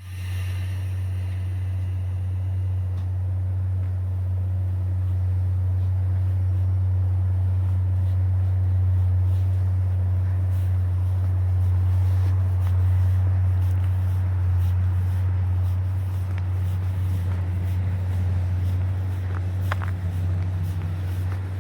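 A steady, loud low drone, like a vehicle's engine or motor running, holding level throughout, with a few faint clicks near the end.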